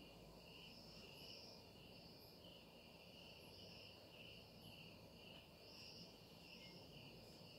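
Near silence with faint, steady high-pitched insect chirring in the background.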